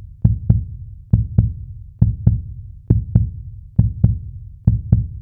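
Heartbeat sound effect: pairs of low thumps, each pair a quick double beat, repeating six times a little faster than once a second.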